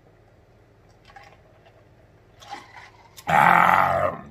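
A man gulping ice water from a large plastic jug, the swallows faint. About three seconds in there is a loud, breathy voiced exhale lasting about a second as he comes off the jug.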